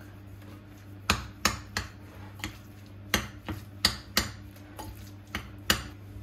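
Metal spoon clinking against the sides of a glass bowl while stirring minced chicken: about ten sharp, irregular clinks.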